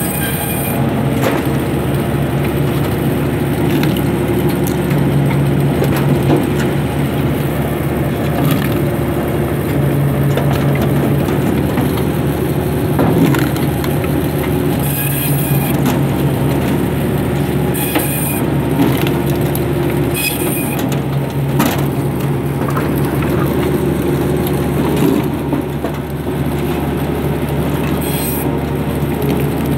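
Log band saw running steadily as logs are fed through and cut into firewood rounds, with a constant machine hum and several short, bright rasps as the blade bites the wood.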